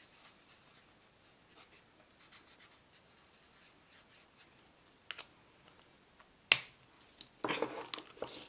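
Faint scratching of a Stampin' Blends alcohol marker colouring on paper. Then come a few small plastic clicks, the loudest a single sharp click about two-thirds of the way through, and near the end a clatter of markers being picked up and set down.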